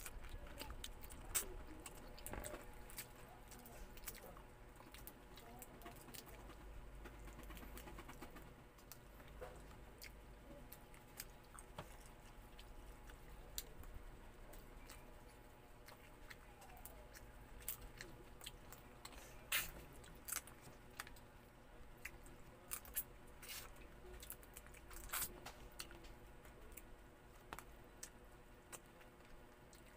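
Close eating sounds of someone chewing and sucking meat from boiled crab shells and legs, with scattered sharp clicks and cracks of shell.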